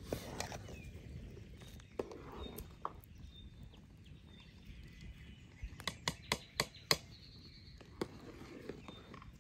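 Sharp knocks of kitchen utensils: a few single knocks, then a quick run of about six sharp knocks roughly two-thirds of the way in, against a steady outdoor background.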